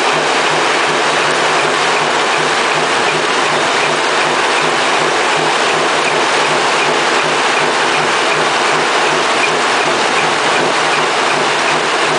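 Seashell washing machine running: a steady mechanical clatter with a regular low pulse.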